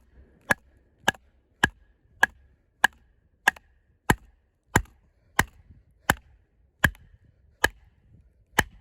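A heavy fixed-blade combat knife chopping into knotty wood: about thirteen sharp strikes at a steady pace, a little over one and a half a second, each with a faint ring.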